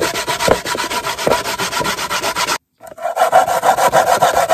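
Fresh coconut being grated by hand on a stainless steel box grater: rapid, even rasping strokes. They break off briefly about two and a half seconds in and go on louder just after.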